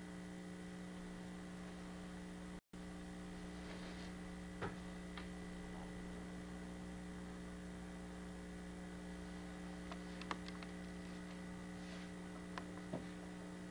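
Steady electrical mains hum on the recording, with a few faint clicks scattered through it. The sound cuts out for an instant a little over two and a half seconds in.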